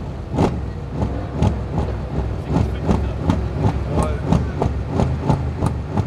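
Mercedes-AMG E63 S (W212) twin-turbo V8 with a decatted SuperSprint exhaust running at low revs: a steady low rumble broken by irregular sharp pops and crackles, a few each second.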